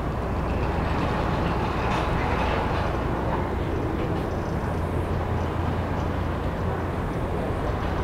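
A steady, low mechanical hum and rumble outdoors, even and unbroken.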